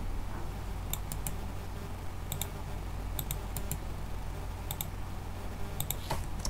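Computer mouse and keyboard clicking: about a dozen short, sharp clicks, many in quick pairs, over a steady low electrical hum, with a brief rustle near the end.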